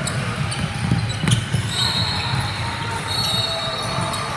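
Basketball play on a court: a ball bouncing on the floor, with a sharp knock about a second in and a few short, high squeaks, like sneakers on the hardwood.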